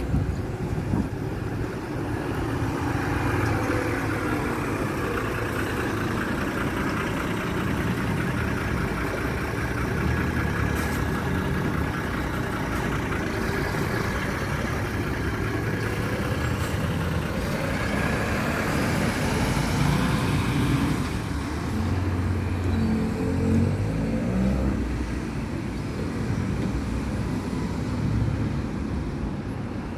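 Diesel engine of a Stagecoach tri-axle coach running as the coach pulls away past the camera and drives off, over steady road-traffic noise.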